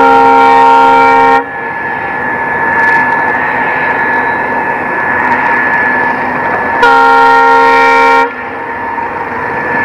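Multi-tone horn of a double-headed diesel freight train sounding two blasts, each about a second and a half long, the second about seven seconds after the first. Between them the train runs on with a steady rumble and a high whine.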